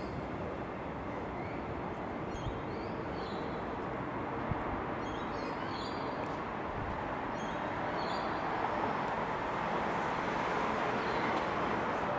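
Steady outdoor railway-station rumble that swells slightly in the second half, with a small bird chirping briefly many times.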